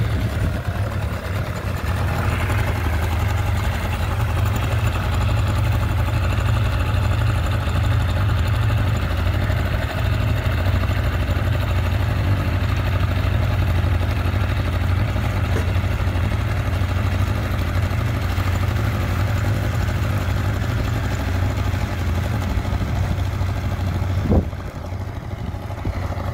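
Small outboard motor on a sailboat's stern running steadily in gear, its propeller churning the water. A single knock near the end, after which the engine is slightly quieter.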